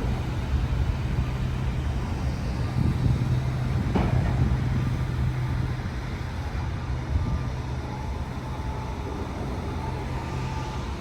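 Steady vehicle hum and road noise heard from inside a moving car, with a single sharp knock about four seconds in.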